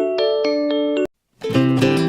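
Background music: light bell-like keyboard notes that stop about a second in, a brief silence, then fuller music with a strummed, guitar-like texture.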